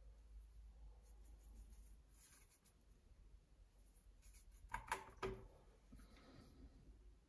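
Paintbrush working on watercolour paper with faint rubbing, and a little past the middle a short cluster of sharp clicks as the brush knocks about in a plastic watercolour pan palette.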